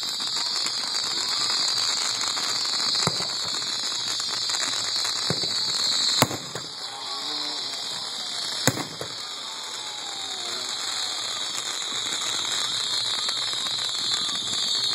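Fireworks going off: a steady hiss of spraying sparks, with crackling and a few sharp pops. The loudest pops come about six and nine seconds in.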